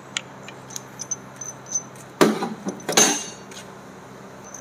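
Metal hand tools and engine parts clinking while the crankshaft timing gear is fitted: a few light clicks, then two sharper metallic knocks a little under a second apart, each with a short ring.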